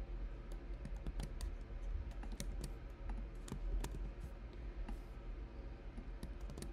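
Typing on a computer keyboard: irregular, quick key clicks over a low steady hum.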